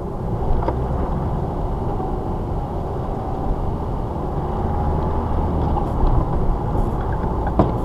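Car driving, heard from a dashcam inside the cabin: steady engine and road rumble.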